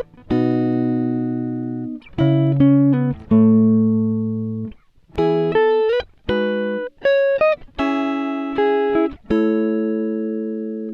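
Background music: plucked guitar-like notes and chords, each struck and left to ring out, in a slow, gently changing melody.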